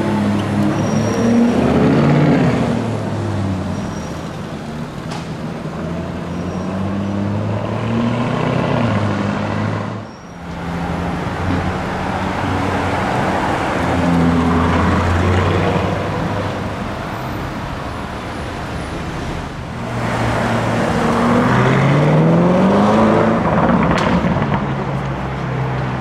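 Lamborghini Urus twin-turbo V8 engines accelerating, the revs rising and falling. The sound comes in separate passes that break off sharply about ten and twenty seconds in.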